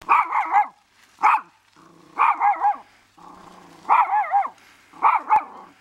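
Small terrier barking in quick, high-pitched volleys of two to four yaps, five volleys in all, with low growls rumbling between them.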